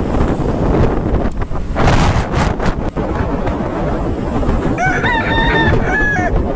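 Wind rushing over a motorcycle rider's camera, with road and traffic noise, while riding. About five seconds in, a pitched, wavering call lasting about a second and a half, in three parts, sounds over it.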